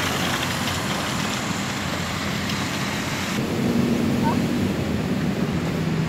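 Road traffic noise: a steady rush of passing motorbikes and cars, with an engine hum coming up in the second half.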